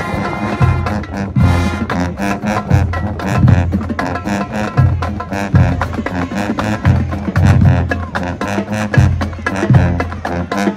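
Marching band playing loud, with heavy low brass notes pulsing underneath, higher horns on top and steady drum hits throughout.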